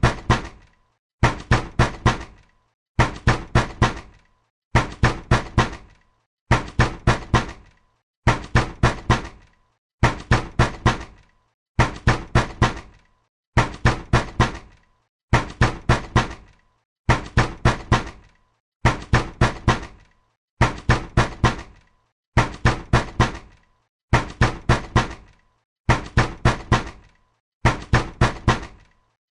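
Angry, hard knocking on a door: quick bursts of four heavy knocks, repeating evenly about every 1.8 seconds.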